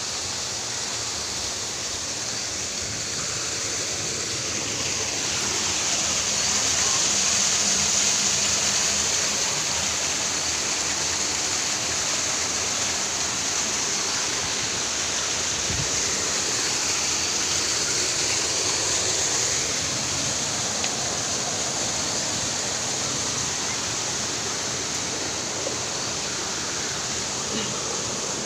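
Steady rushing of a waterfall and its stream pouring over rocks, swelling a little a few seconds in.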